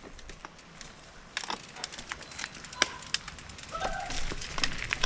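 Mountain bikes rolling off onto a rough, rocky dirt trail: tyres crunching over loose stones and gravel with many sharp clicks and rattles, starting about a second in. A couple of brief squeaks come through near the end.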